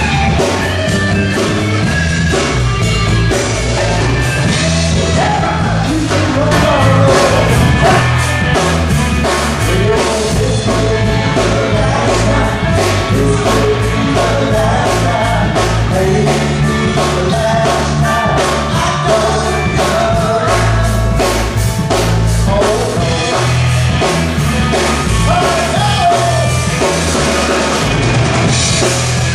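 Rock band playing live, with a singer over drums and guitar.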